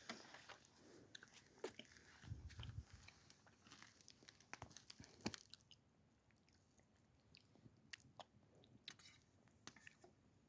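Faint chewing and biting as someone eats freshly grilled chicken, with small scattered crunches and clicks, busier in the first half and sparse later.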